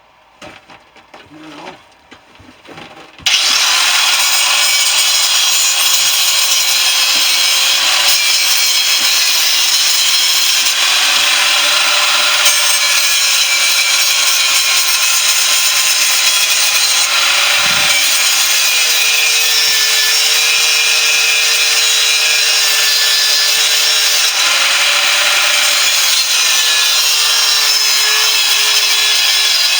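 A power tool starts about three seconds in and runs steadily, cutting into the shell of a central air conditioner compressor. Its motor tone drops lower for a stretch in the middle and again near the end as it bears down.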